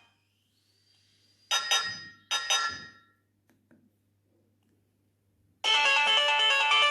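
Nokia 6030's built-in ringtones playing through the phone's loudspeaker: one melody cuts off at the start, two short ringing notes sound about a second and a half in, and a new ringtone with many notes at once begins near the end.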